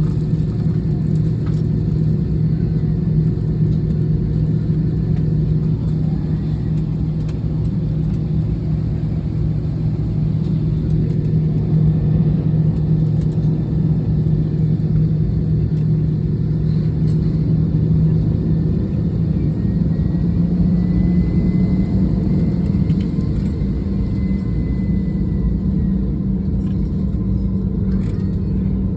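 Jet airliner heard from inside the cabin as it begins its takeoff: a loud, steady engine and runway rumble. Its low hum steps up in pitch about two-thirds of the way through as the engines power up.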